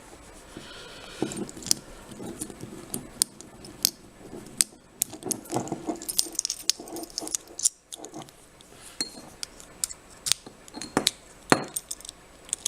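Bunch of keys jangling and clinking on a metal key ring, with many sharp, irregular metallic clicks, as one key is worked off the ring.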